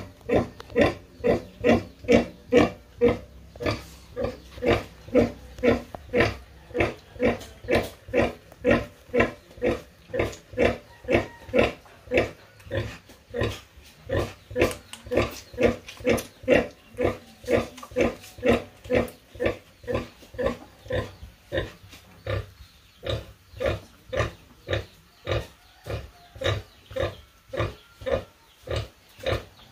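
Nursing sow grunting in a steady rhythm, about two short grunts a second, while her newborn piglets suckle. These are the sow's nursing grunts, which go with milk let-down.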